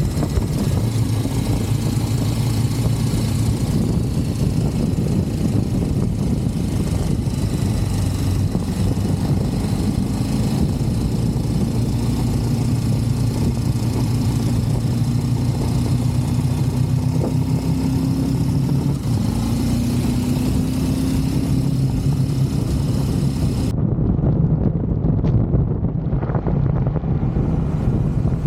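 KTM 1390 Super Duke Evo R's V-twin engine running steadily under a haze of wind noise, its pitch rising slowly in the middle. The high hiss drops away abruptly near the end.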